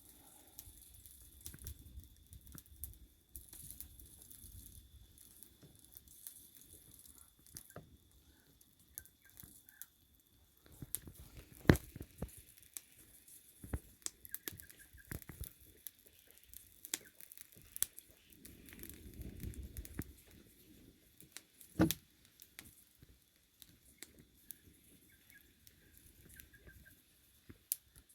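Faint irregular handling noise: crackles, rustles and scattered sharp clicks and knocks, the two loudest about 12 and 22 seconds in, with low rumbling at the start and again around 19 seconds.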